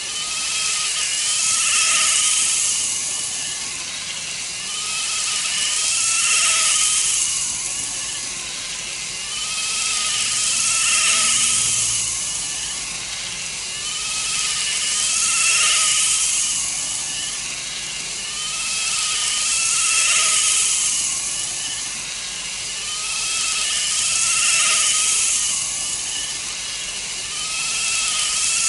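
N-gauge model train, a four-car 169-series EMU on a KATO motor unit, running on track: a small electric motor whine with wheel-on-rail hiss. It swells and fades about every four and a half seconds as the train comes round past the microphone.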